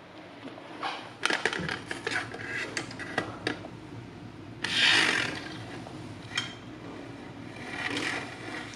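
Kitchen cabinets and drawers being handled: a quick run of clicks and knocks with rubbing, then a longer sliding swish about five seconds in and a softer one near the end.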